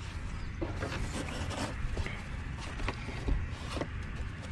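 Faint knocks, clicks and rustles of someone moving about in a small boat, over a steady low rumble.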